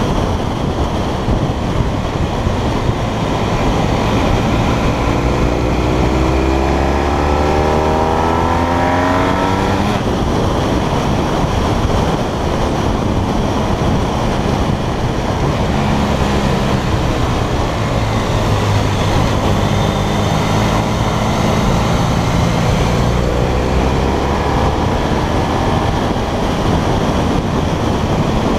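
Motorcycle engine running under load with heavy wind rush over the bike-mounted microphone; the engine note rises twice as the bike accelerates, about a fifth of the way in and again near the end.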